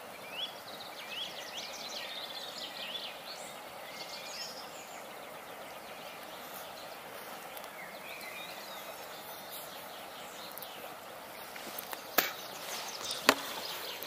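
Outdoor ambience: birds chirping over a steady background hiss, with two sharp knocks near the end.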